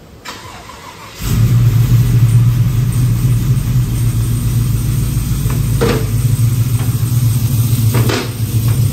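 Cammed L86 6.2-litre V8 with true dual 3-inch exhaust, running steadily at an even speed. It comes in suddenly about a second in, with two faint clicks later on.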